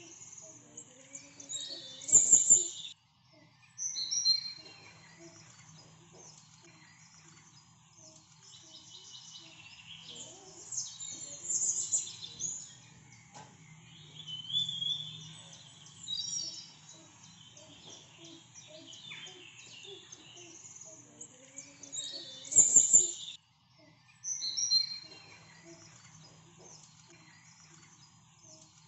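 Birdsong: several birds chirping and trilling in quick high calls over a faint low steady hum. It reads as a looped recording whose loudest burst of calls comes round again about every twenty seconds.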